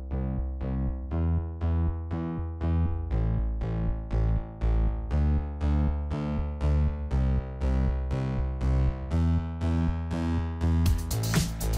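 Background music: a synthesizer keyboard playing pulsing chords about twice a second, with drums coming in near the end.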